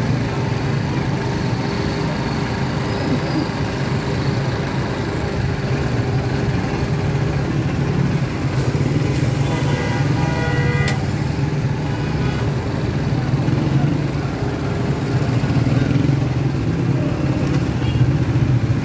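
Busy street traffic heard from a motorcycle moving through it: a steady motorcycle engine hum among other motorcycles and auto-rickshaws, with the murmur of people's voices. A vehicle horn sounds briefly about ten seconds in.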